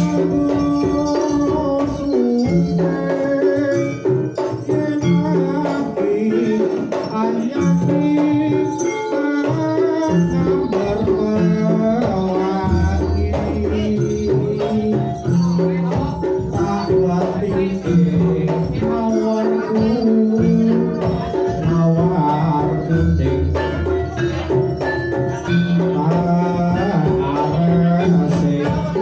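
Live Javanese jaranan ensemble music playing without a break: a melodic line held over busy percussion with jingling.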